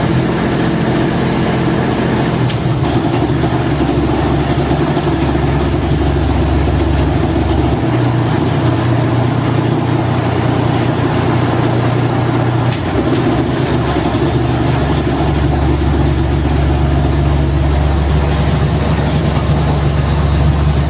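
Lifeboat's inboard diesel engine running, heard inside the enclosed boat. Its low note shifts a few times as the gear lever is moved between ahead, neutral and astern to turn the propeller.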